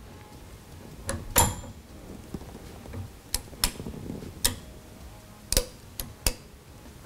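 Sharp metal clicks and clinks, about eight at irregular spacing and the loudest about a second and a half in, as a steel barrel nut wrench on a torque wrench is worked onto an AR-15 barrel nut.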